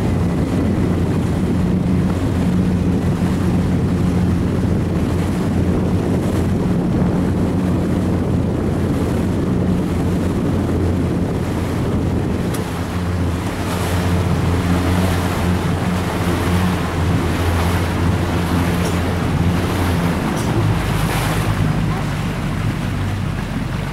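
A boat's engine running steadily under way, with wind noise on the microphone and water rushing past the hull. About 20 seconds in the engine note shifts.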